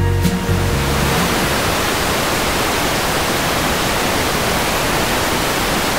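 Background music stops about a second in, and a steady hiss of even noise, like static, takes over at an unchanging level.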